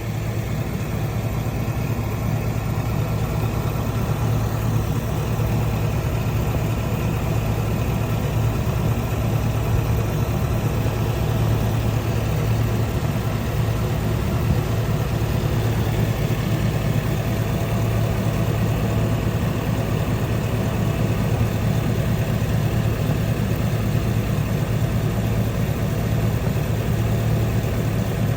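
GMC Sierra pickup engine idling steadily, a constant low hum with faint steady whining tones above it.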